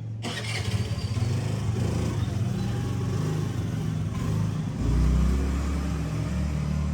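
A motor vehicle's engine running, with a low swell about five seconds in.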